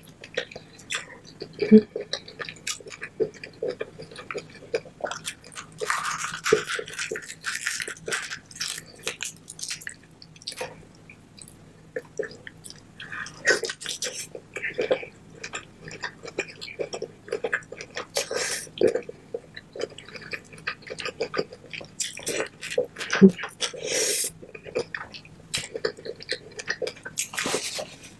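Close-miked chewing of lobster tail in butter sauce: a steady stream of wet mouth clicks and smacks, irregular and dense, with a few longer wet slurping stretches.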